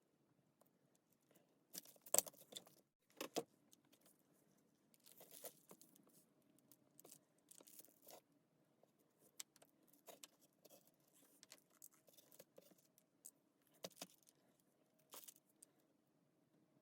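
Clinks and rattles of small metal parts and tools being handled, with two sharper knocks about two and three seconds in, then irregular light ticks.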